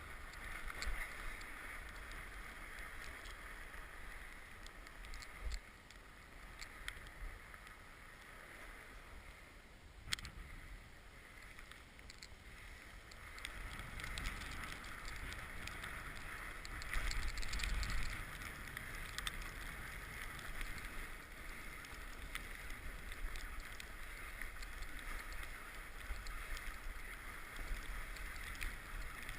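Mountain bike being ridden along a trail: steady tyre and rolling noise with wind on the microphone, peppered with short clicks and rattles from the bike over bumps. The noise eases off for a few seconds and then grows louder again.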